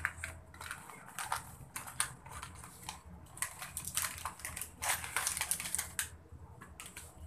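Plastic packaging crinkling and rustling in irregular crackles as it is handled and opened, going quieter for the last second or so.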